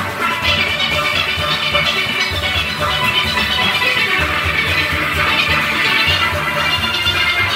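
A large steel orchestra playing, heard from among its bass pans, whose deep notes sound strongly and rhythmically under the ringing higher pans.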